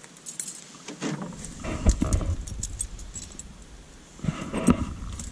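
Bunch of keys jangling and clinking at a padlocked wooden shed door as a key is tried in the lock, with a loud knock about two seconds in.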